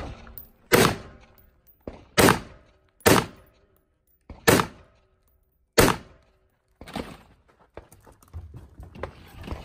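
Five gunshots fired at a steady pace, about one to one and a half seconds apart, each trailing off briefly, followed by a few quieter knocks near the end.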